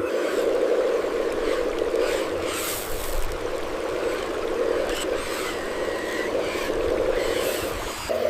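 Steady machine drone of working construction vehicles, with scraping and rattling of material on top; near the end it switches abruptly to a different steady drone.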